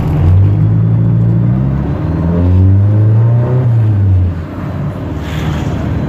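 Small Fiat car's engine, heard from inside the cabin through its modified homemade exhaust, accelerating in gear. The revs rise, drop briefly about two seconds in at a gear change, rise again, then fall away about four seconds in as the throttle is lifted, leaving a quieter steady run.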